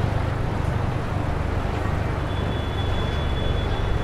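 Busy city street ambience: a steady low rumble of traffic. A faint, thin high tone sounds from a little past halfway to near the end.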